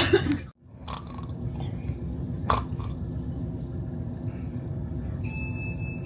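Steady low rumble of a passenger train heard from inside the carriage, with a brief click. About five seconds in, a steady high-pitched tone sets in.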